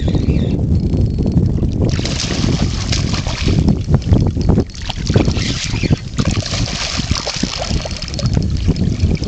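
Wind buffeting the microphone the whole time, with water splashing from about two seconds in as a hooked snook thrashes at the surface.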